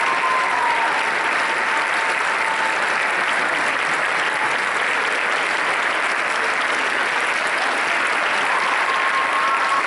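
Audience applauding steadily, with a faint thin held tone over the clapping near the start and again near the end.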